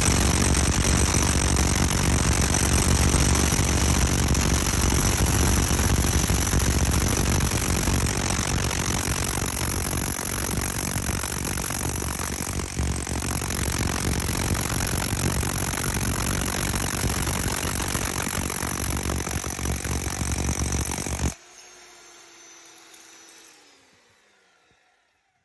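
Jackhammer pounding down backfilled soil to compact it, a loud, steady rapid hammering that cuts off suddenly about 21 seconds in. After it stops, a faint falling tone as the tool's motor winds down.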